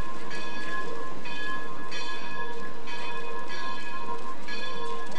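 Steam locomotive's bell ringing steadily, its swinging clapper striking about once a second in an uneven alternating rhythm, each stroke leaving a lingering ring.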